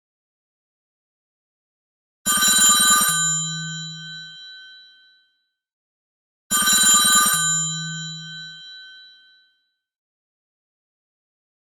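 Samsung Galaxy S25 retro-style ringtone imitating an old mechanical telephone bell. It plays two short rings about four seconds apart, each a rapid burst of bell strikes that then rings out and fades.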